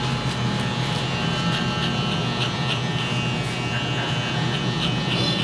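Electric hair clipper running with a steady buzz as it trims short hair.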